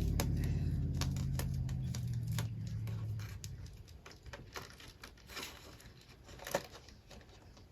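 Scattered small clicks and light rustling of hands working a small metal charm clip onto a planner. A low hum fades out in the first three seconds.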